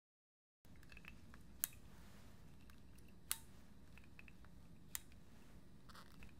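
A hand-held pipette clicking three times, evenly about a second and a half apart, with a few fainter ticks, over faint room tone.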